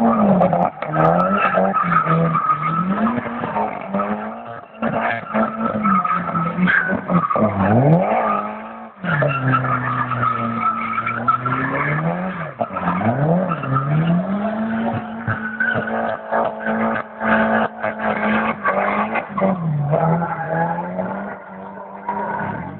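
Drift car's engine revving hard, its pitch rising and falling over and over as the car slides, with tyres squealing. The revs drop away and pick up again about nine seconds in.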